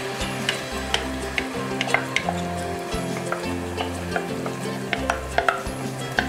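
A wooden spoon scraping ketchup out of a glass measuring cup into a saucepan, with irregular sharp clicks of the spoon against the glass, about two a second. Under it runs a steady sizzle from the pot of sautéing onions and garlic.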